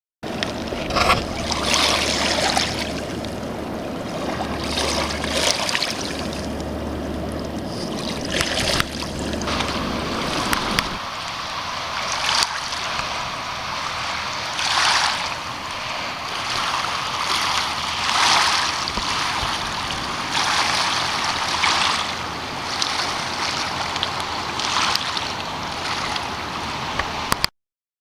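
River water washing against the bank in repeated swells every couple of seconds, with a low steady hum underneath that stops about eleven seconds in.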